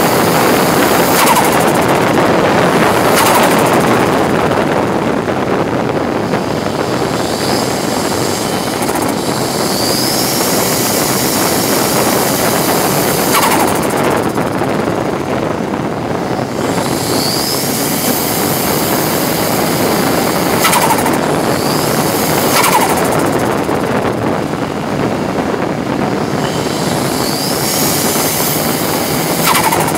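Ford Sierra RS Cosworth race car's turbocharged Cosworth four-cylinder engine under hard load on track, loud and continuous inside the stripped cabin with road and wind noise. About ten times it breaks sharply with a quick change in pitch, as it shifts gear or lifts off for corners.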